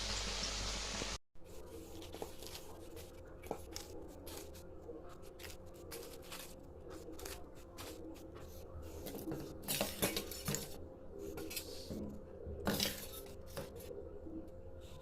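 A loud rushing noise cuts off abruptly about a second in. Then come scattered clinks and clatters of dishes and cutlery over a steady low hum, louder about ten and thirteen seconds in.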